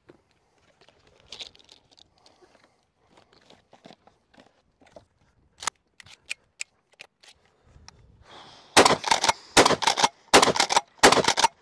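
Scattered light clicks as 12-gauge low-brass 7½ target shells are handled and loaded into a Rock Island All Gen 12 pump-action shotgun. Near the end the shotgun fires four loud shots in quick succession, about 0.7 s apart.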